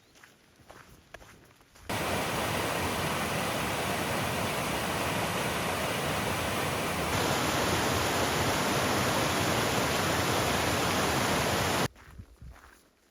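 Loud, steady rush of fast-flowing water that cuts in abruptly about two seconds in, gets a little louder midway, and cuts off suddenly near the end, with footsteps on a road just before and after.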